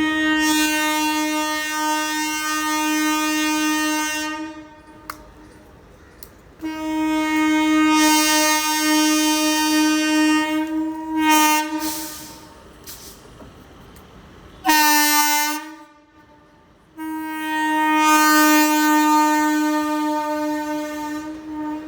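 Indian Railways WAP-4 electric locomotive's air horn blowing long, steady single-note blasts: a long blast, a second long one after a short gap, a brief short toot, then a third long blast.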